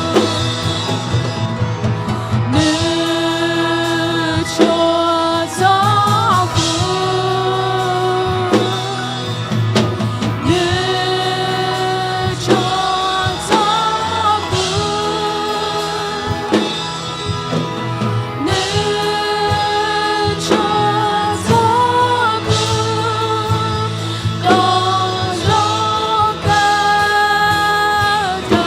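Worship song: a voice singing held, gliding melody lines over band accompaniment with a steady beat.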